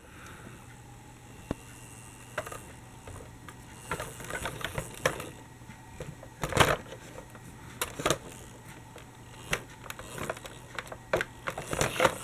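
Plastic toy articulated trolleybus rolled over plastic Lego train tracks, its wheels knocking on the rails in irregular clicks and clacks. The loudest knocks come about six and a half seconds in and near the end.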